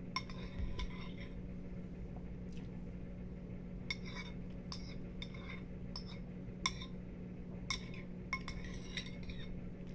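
Metal spoon clinking and scraping against a ceramic bowl while eating, in irregular sharp clinks, over a steady low hum.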